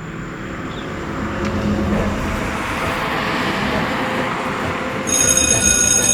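A steady rushing, rumbling noise that swells over the first couple of seconds and then holds. About five seconds in, music with held tones comes in over it.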